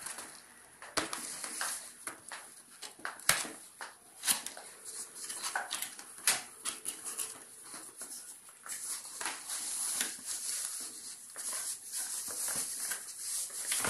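Cardboard packaging and plastic wrapping being handled: crinkling rustle with many sharp clicks and knocks as the boxes are pulled apart and the wrapped speakers are lifted out.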